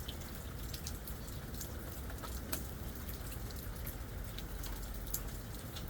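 Steady rain during a thunderstorm, with scattered sharp ticks of single drops over an even hiss and a low, steady rumble underneath.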